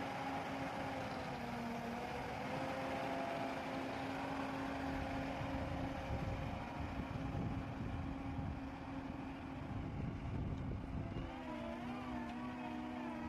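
Diesel engine of an SLM 4300 self-loading concrete mixer running steadily under load as it lifts its loader bucket of sand. About eleven seconds in, the engine note shifts and wavers.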